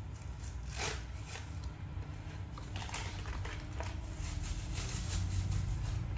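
Hot Wheels toy car's cardboard-and-plastic blister pack being picked at and torn open by hand: scattered soft rustles and small clicks over a low steady hum.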